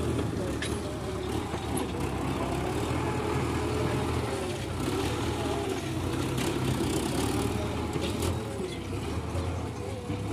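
Farm tractor's diesel engine running steadily as it works a front-end loader, scooping sand and lifting it into a trailer; the engine note shifts a little with the load.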